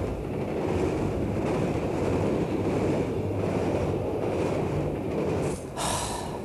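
Steady noise of a train running along the track, with a short hiss near the end.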